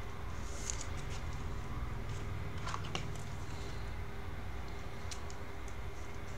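Faint rustling and light ticks of a trading card and a clear plastic card sleeve being handled as the card is slid in, over a steady low hum.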